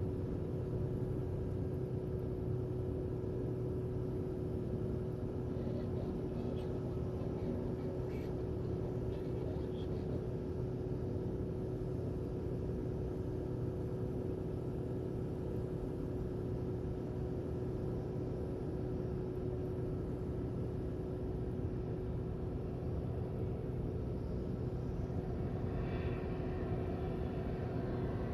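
Private jet's engines running steadily at idle: a constant low rumble with a steady held whine over it.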